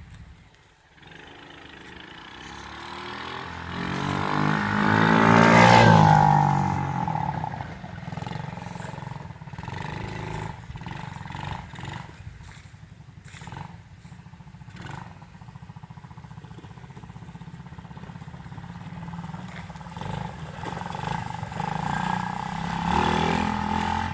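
ATV engine running, rising to its loudest about six seconds in, then dropping back to a steadier level, and growing louder again near the end.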